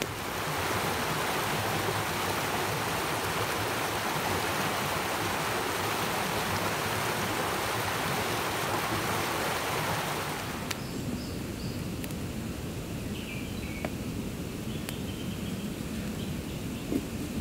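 Shallow creek water running over stones, a steady rushing for about ten seconds that cuts off abruptly. A quieter stretch follows, with a few faint high chirps and a low rumble that grows near the end.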